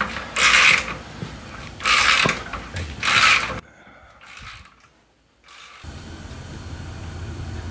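Ratchet wrench clicking through three short strokes while loosening an exhaust mounting bolt, about a second apart. After that the sound drops away, and a low steady hum comes in near the end.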